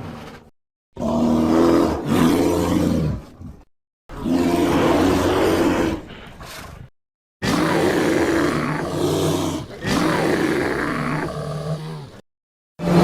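Sound-effect roars of a Carnotaurus dinosaur: four separate low, pitched roars of two to three seconds each, divided by short silences. The tail of an earlier roar fades out at the start.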